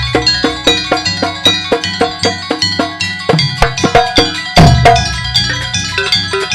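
Gamelan ensemble playing a fast, even run of struck metal keys over drums, with a deep gong stroke about four and a half seconds in.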